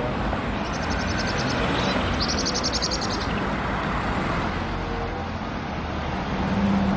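Road traffic noise as a red London New Routemaster double-decker bus drives toward the camera, its engine hum swelling louder near the end as it comes close. Two short bursts of rapid high chirping sound over the traffic in the first three seconds.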